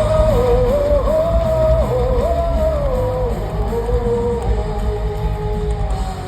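Live heavy metal band playing, a held melodic lead line moving step by step over dense drums and bass guitar.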